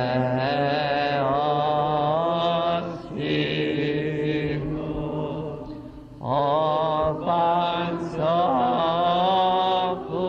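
Byzantine chant: a voice sings a slow, ornamented melody in long held phrases over a steady low drone (the ison), with short breaks between phrases.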